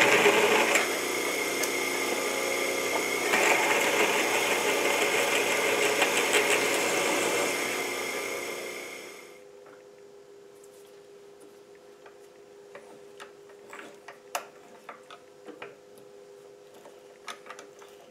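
Benchtop mill-drill running and drilling a clearance hole through a steel plate; the motor is switched off and winds down about eight seconds in. After that, faint clicks and scrapes as a hand tap is turned in the hole to thread it.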